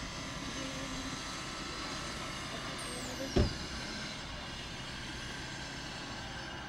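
Alstom Citadis tram running slowly past on a test run, a steady hum of rolling and traction equipment with faint steady high whines. About three seconds in, a whistle-like tone falls in pitch, and a single low thump comes midway.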